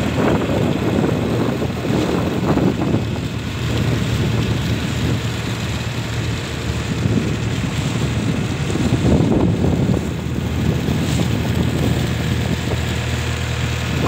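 Motorboat engine running steadily as a low hum, with water splashing along the hull and wind buffeting the microphone.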